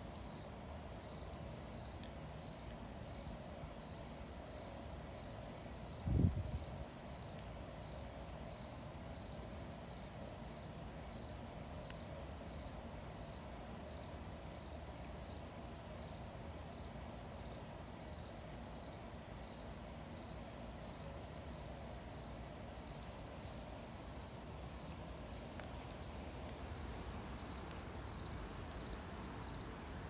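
Crickets chirping steadily in an even, repeating rhythm, with faint crackles from a wood campfire. A single brief low thump comes about six seconds in.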